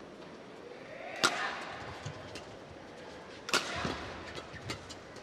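Badminton rally: rackets striking a shuttlecock with sharp cracks, the loudest about a second in and another about three and a half seconds in, with fainter taps and clicks of play between.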